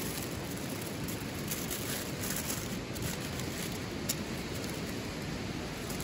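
Steady rush of a flowing river, with a few faint crinkles from aluminium foil being folded around a block of meat.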